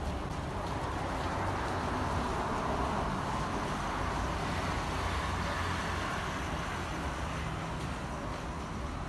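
Steady road traffic noise: a continuous hum of cars passing on a city street, with no single vehicle standing out.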